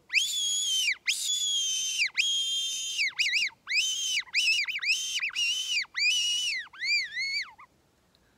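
Mouth-blown deer call sounded as a series of about eight high whistling calls: three long ones first, each sliding up, holding and dropping away, then shorter, wavering calls.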